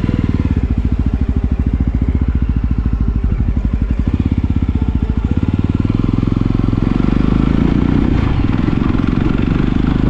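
Yezdi Roadster motorcycle's single-cylinder engine pulling away and running under way, with a steady rapid exhaust beat that blurs into a denser rumble about seven seconds in.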